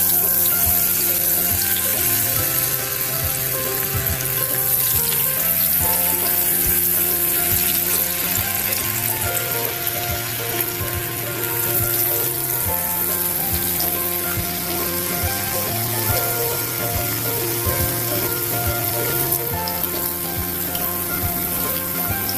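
Potato sticks deep-frying in hot oil in a frying pan: a steady sizzling and bubbling that starts abruptly as the potatoes go into the oil. Background music plays under it.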